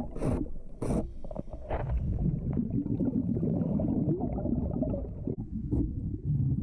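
Underwater sound of a diver scraping marine growth off a timber boat hull: two sharp scraping strokes in the first second, then a muffled, continuous low rumble and gurgling of water around the camera.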